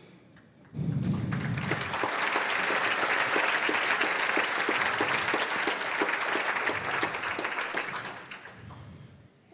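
Audience applauding a finished talk. The clapping starts suddenly about a second in and fades away near the end.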